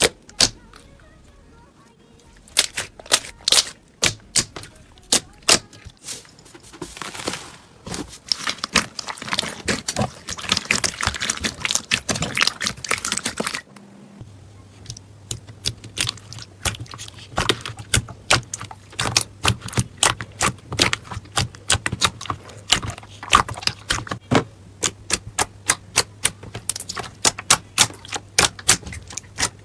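Slime being squeezed and poked, giving rapid sticky clicks and pops, with a denser crackling stretch before a cut about halfway through. A low steady hum runs under the second part.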